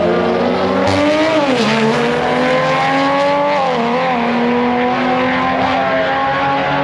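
Tuned BMW 135i's turbocharged straight-six accelerating hard down a drag strip, its pitch climbing and then falling back several times as the automatic gearbox shifts up. The transmission is slipping under the power, as the spectator hears it.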